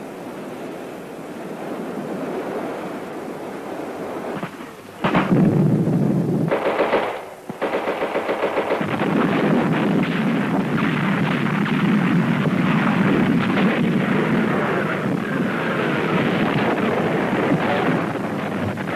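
Machine-gun fire in rapid bursts. It breaks in suddenly about five seconds in over a quieter rushing noise, dips briefly around seven seconds, then runs almost without pause.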